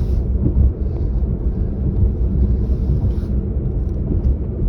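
Steady low rumble of a car driving, road and engine noise heard inside the cabin.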